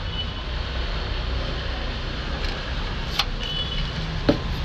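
Two short plastic clicks as a plastic hose quick connector is handled and then set down on a table, the second about four seconds in and louder, over a steady low background rumble.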